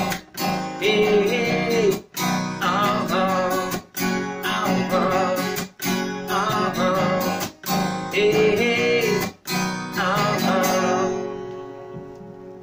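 Acoustic guitar strummed in a steady rhythm, the chords stopping short about every two seconds. Near the end a last chord is left ringing and dies away, closing the song.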